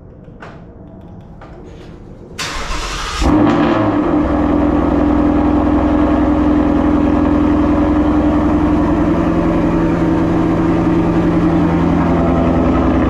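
Ford Mustang engine being started: the starter cranks for under a second, about two and a half seconds in. The engine catches with a brief rev, then settles into a steady idle.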